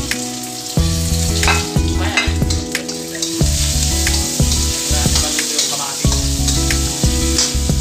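Onions, tomatoes and green bell pepper sizzling in hot oil in a wok, stirred with a spatula that scrapes and knocks against the pan several times. Low background music plays underneath.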